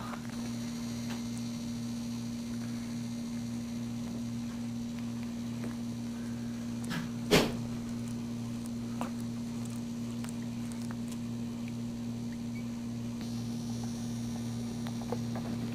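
Steady electrical hum, with one brief sharp sound about seven seconds in.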